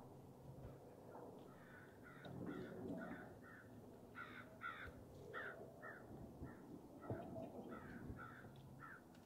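A bird calling over and over, about twenty short, faint calls at roughly two to three a second, starting about a second in, with a brief break near the middle.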